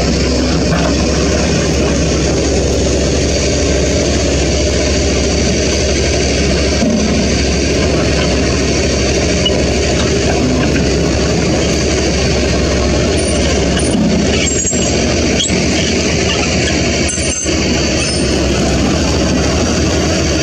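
Diesel engines of Toyota Dyna dump trucks running steadily as the trucks crawl over a rough dirt haul road.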